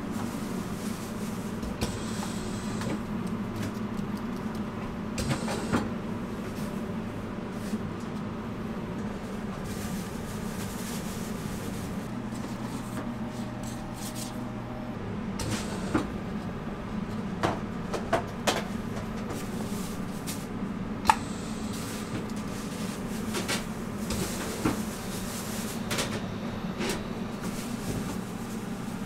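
Steady low hum of kitchen equipment, with scattered light clicks and knocks of hands working at a stainless steel glazing station and wire cooling rack; the sharpest knock comes about two-thirds of the way through.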